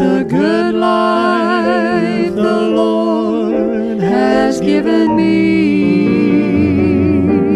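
Gospel song: a voice holding long notes with vibrato over sustained instrumental backing, a low bass note coming in about five seconds in.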